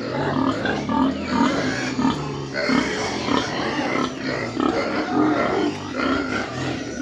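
Several pigs grunting and squealing at once, their short calls overlapping without a break.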